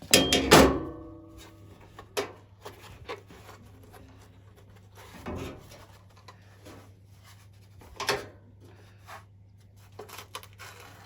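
Handling knocks on a washing machine's opened top: a sharp knock that rings briefly just after the start, then a few lighter knocks and rubs spread through the rest, over a faint steady low hum.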